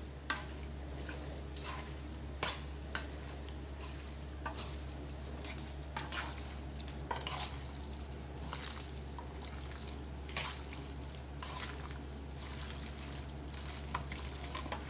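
Metal tongs tossing and stirring diced raw chicken coated in olive oil and seasoning in a stainless steel mixing bowl. The wet pieces squish as they are turned, with irregular clinks of the tongs against the bowl.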